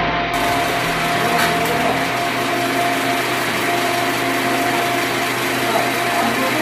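Steady machine noise of shipyard repair work, a power tool or engine running without a break, with a faint steady whine in it.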